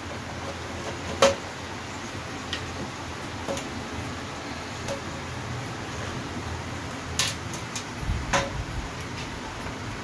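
Screwdriver turning screws in a typewriter's bottom cover: scattered light clicks and ticks of metal on the screws and plastic case, the sharpest just over a second in and a small cluster about seven seconds in. A low handling rumble comes in near the end.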